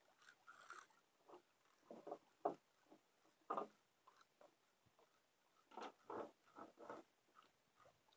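Near silence broken by a few short, faint scratchy rubs and scrapes, typical of fishing line and a handheld handline reel being handled.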